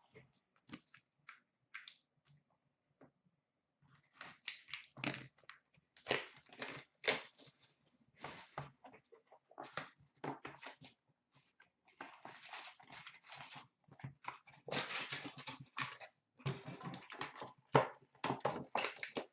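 Hands tearing open and crinkling the wrapping of an Upper Deck hockey card box and its packs, in irregular bursts of rustling with short pauses, busier from about four seconds in.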